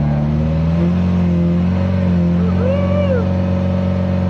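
Motorized bangka's engine running steadily, its pitch edging up slightly about a second in, with people talking over it.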